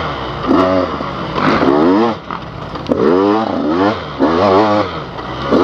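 Dirt bike engine revving up and down as the throttle is opened and closed. Its pitch climbs and drops several times.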